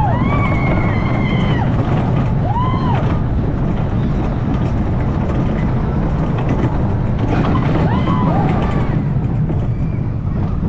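Arrow mine train roller coaster running along its tubular steel track with a steady, heavy low rumble of the wheels. Riders whoop a few times in the first three seconds and again about eight seconds in.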